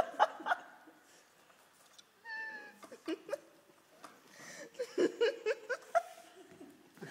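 Giggling and laughter in short bursts, with one short, high, meow-like whine about two seconds in.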